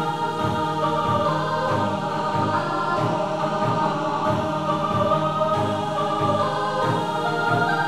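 Electronic background music composed in LMMS: sustained chords over a steady low beat.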